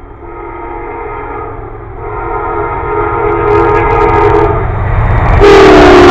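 Locomotive air horn sounding a chord in long blasts as a train approaches, growing louder, then suddenly much louder and a little lower in pitch near the end as it comes close, over the train's low rumble.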